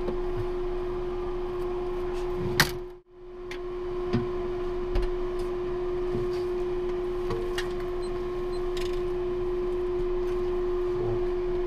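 Steady hum of the space station's fans and equipment, with one strong steady tone, and a few small handling clicks. About three seconds in there is a sharp click followed by a brief dropout before the hum returns.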